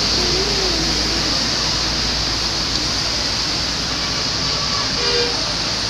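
Steady rushing noise of passing road traffic, with a low rumble underneath.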